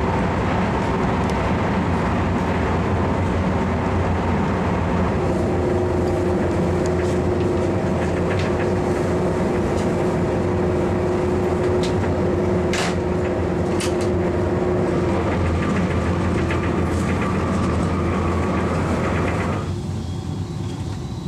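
Running noise inside an ICE 2 high-speed train at speed: a steady rumble of the wheels on the rails with a steady hum. A faint whine joins for several seconds in the middle, and near the end the sound suddenly turns duller.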